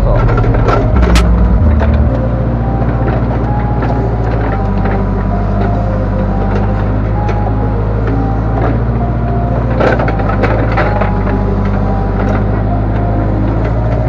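Backhoe loader's diesel engine running steadily as the backhoe arm is worked on its hydraulic levers; its note drops and gets quieter about two seconds in. A few short knocks and scrapes come around ten seconds in.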